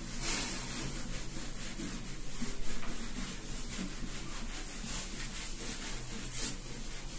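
Bare hand rubbing across a whiteboard in quick repeated strokes, wiping off marker writing.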